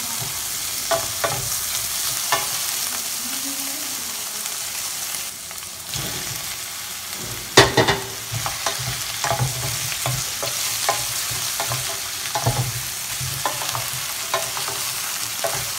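Onions, bell peppers and pineapple sizzling in oil in a stainless steel pan while a utensil stirs and scrapes them, with a steady hiss and frequent short scrapes. One louder clatter about halfway through.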